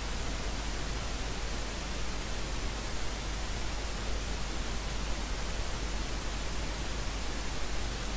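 Steady hiss over a low hum: the recording's background noise, with no other sound.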